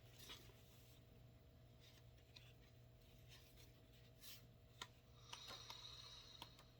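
Near silence: room tone with a steady low hum, a few faint scattered clicks and a light rustle about five seconds in.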